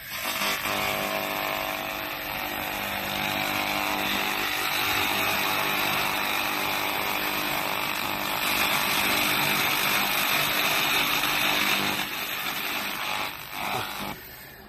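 Handheld pulsed laser cleaning head firing at a metal surface: a loud, steady buzzing crackle of the laser ablating the surface. It starts abruptly and stops about fourteen seconds later.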